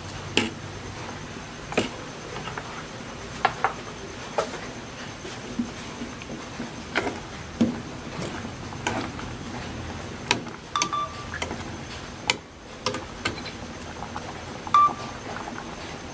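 Broth boiling hard in an aluminium pot, a steady bubbling hiss, with a metal ladle clinking sharply against the pot about a dozen times, a few of the clinks ringing briefly.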